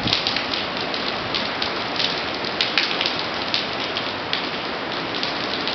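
Heavy hurricane rain pouring onto a concrete driveway and surrounding ground, a steady dense hiss, with a few sharp ticks of drips about halfway through.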